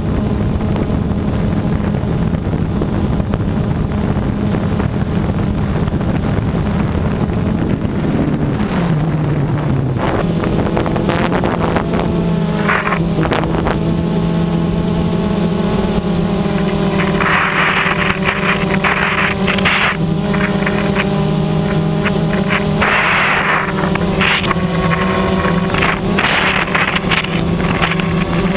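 DJI Phantom quadcopter's motors and propellers humming steadily, heard through the camera on board. The pitch drops briefly about eight seconds in. In the second half, rushing wind swells over the hum twice.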